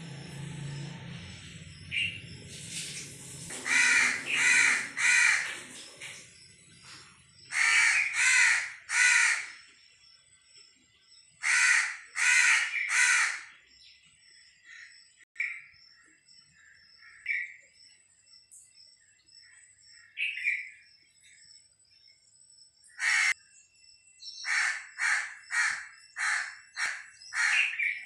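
A crow cawing, the caws coming in groups of three and then in a quicker run near the end. Fainter, shorter calls from smaller birds come in between.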